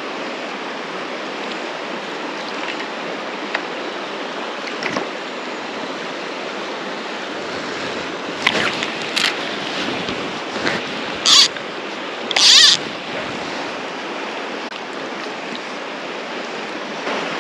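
Steady rush of the Upper River Tweed's flowing water. A little past halfway come a few short, sharp bursts of noise, the loudest two about a second apart.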